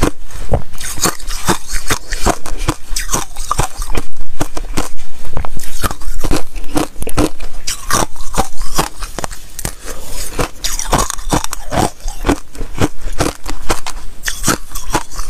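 Thin sheet ice being bitten and chewed close to a lapel microphone: a dense run of crisp, irregular crunches and crackles.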